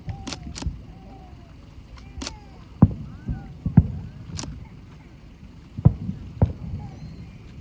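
Aerial firework shells bursting: a series of deep booms and sharp cracks at irregular intervals.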